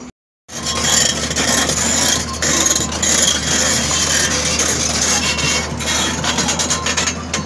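JCB tracked excavator running and moving: a steady low engine hum under dense rasping, clattering noise from its tracks and machinery. It starts loud after a brief gap at the very start.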